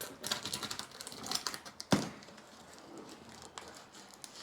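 Cardboard packaging being handled and opened: crinkling and crackling with scattered clicks, and one sharp knock about two seconds in.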